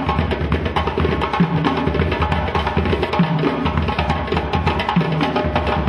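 Percussion-driven music: fast, dense drumming over a low bass figure that repeats about every two seconds.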